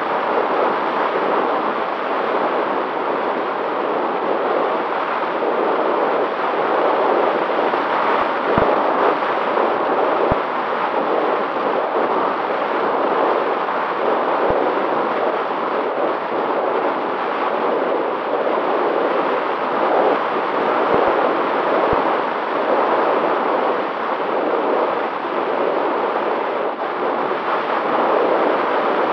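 Steady rush of wind over the onboard camera microphone of a long-range FPV drone in flight, even and unbroken, with a faint steady hum underneath.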